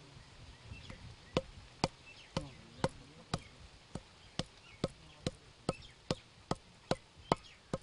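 Long wooden pestle pounding pieces of fresh coconut in a stone mortar, with sharp, even thuds about two a second that begin about a second in.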